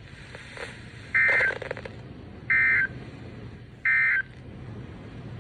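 Emergency Alert System end-of-message (EOM) tones: three short bursts of SAME digital data, a warbling two-tone buzz, each about a third of a second long and a little over a second apart, signalling the end of the alert.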